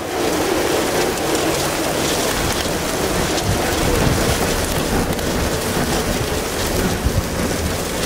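Wind-driven hail and rain pelting the vehicle in a dense, steady clatter as a derecho squall line arrives, with gusty high wind rumbling underneath.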